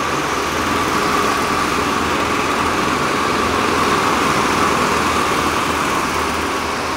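Several go-kart engines running flat out as the karts lap the track: a steady, high engine whine that wavers slightly in pitch.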